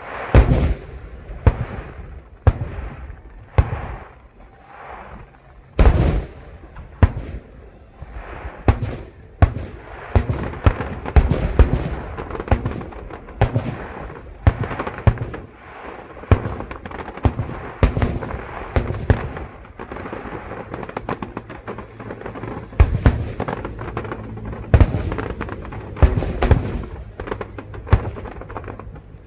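Aerial fireworks display: shells bursting one after another in loud bangs, with crackling between them. The bursts come a few a second at first and grow dense and overlapping from about ten seconds in.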